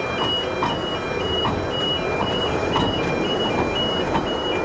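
An electronic two-tone warning alarm sounding steadily, alternating between a higher and a lower beep about three times a second, over the rumble of a train with occasional short clicks.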